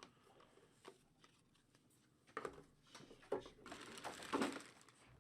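Trading cards being handled at a table: a couple of light clicks, then a short rustle of cards and plastic holders about four seconds in.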